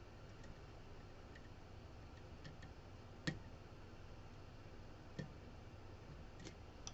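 Faint, sparse clicks of a short-hook lock pick lifting and setting pins inside a CX5 lock, with one louder click a little after three seconds in.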